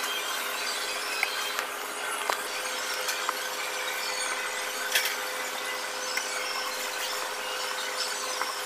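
Metal spoon and fork clinking and scraping against a bowl while eating, a few sharp clicks over a steady background hum with a faint steady tone.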